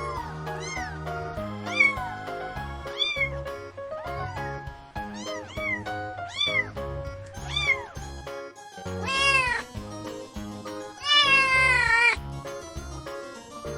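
Cats meowing over and over, short rising-and-falling meows about once a second, then two longer, louder drawn-out meows in the second half. Background music with a steady beat plays underneath.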